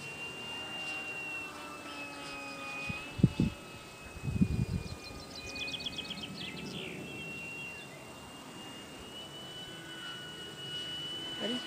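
Distant RC model plane's motor: a thin, steady high whine that drifts slightly in pitch as the plane flies. Two loud low buffets of wind hit the microphone about three and four and a half seconds in, and a quick run of ticks comes around the middle.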